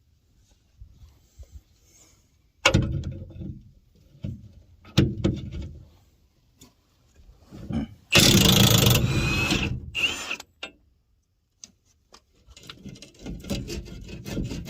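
An impact wrench hammering in a loud burst of about two seconds, then a short second burst, working at a rusted trailer-hitch bolt. Before it come a few metallic knocks and clunks.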